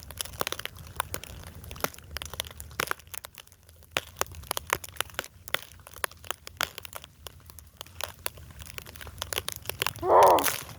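Snow crunching: an irregular run of crisp crunches and crackles. A brief voice-like sound comes near the end.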